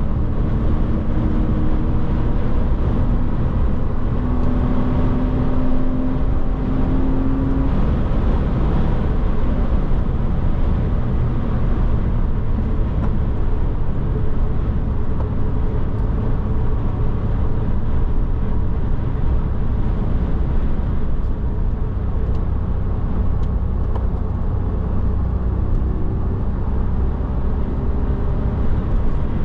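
Porsche Boxster's engine running at a steady cruise under strong road and tyre rumble, heard from inside the car; its note climbs gently a few seconds in and again near the end.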